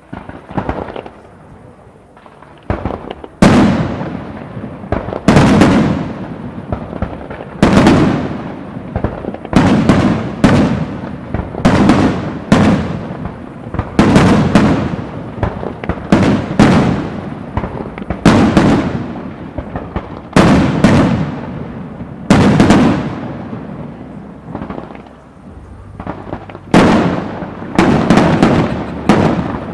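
Aerial firework shells bursting in quick succession, a loud bang every second or two, each trailing off in a rolling echo.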